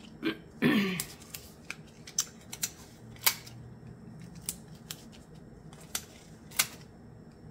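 Scattered small clicks and taps as strips of double-sided foam tape are pulled from the roll and pressed onto a sheet of card paper.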